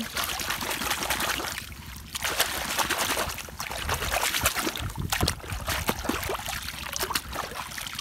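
Water splashing and sloshing as a hand swishes a small plastic toy bus back and forth in muddy pond water to rinse it, easing off briefly about two seconds in.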